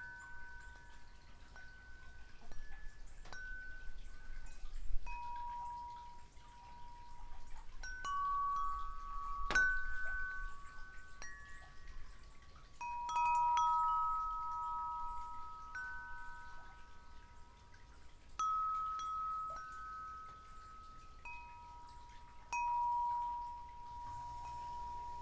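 Wind chimes ringing slowly, a few notes at a time, each sounding on and overlapping the next, with a couple of sharp knocks in between.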